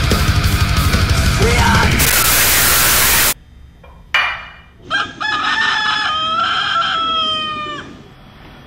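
Loud heavy-metal-style music that ends in a burst of hiss and cuts off suddenly. After a short swish, a rooster crows once, one long call ending in a falling note.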